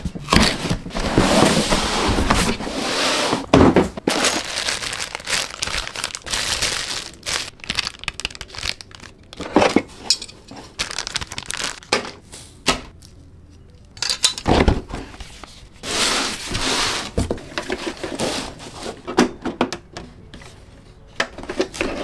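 Cardboard box and packing being handled while unboxing: irregular rustling and crinkling of cardboard and wrapping, with several knocks and thuds as parts are lifted out and set down.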